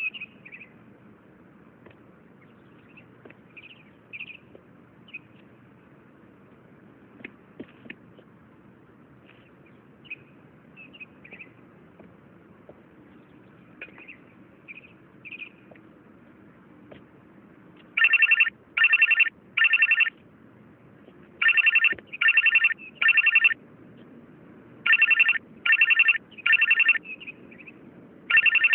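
Mobile phone ringtone ringing loudly in three groups of three short rings, starting about two-thirds of the way in, with one more ring near the end. Before it there are only faint chirps and small clicks over a low hum.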